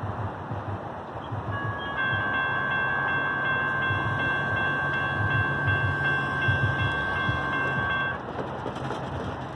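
A pair of ASC electronic crossing bells ringing, a steady electronic ding that starts about two seconds in and cuts off suddenly near the end. They ring as the crossing gates go up and fall silent once the gates are raised.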